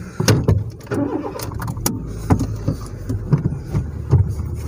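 Car engine running, heard from inside the cabin as a steady low rumble, with scattered short clicks and knocks from handling and movement inside the car.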